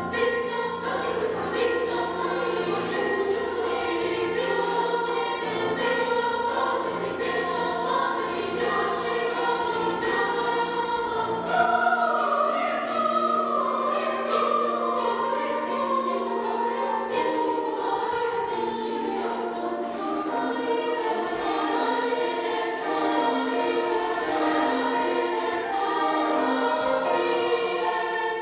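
Girls' children's choir singing in parts, with instrumental accompaniment. The low bass notes drop out about twelve seconds in.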